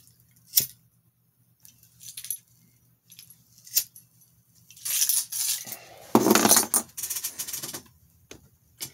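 Pocket lighter flicked to light a cigarette, sharp clicks about half a second in and again near four seconds in, with the keys hanging from the lighter jingling. From about five seconds on comes a few seconds of louder breathy and handling noise as he draws on the cigarette and blows out.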